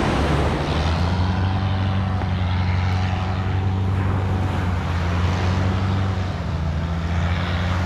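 A boat's engine running steadily, a loud, even low drone.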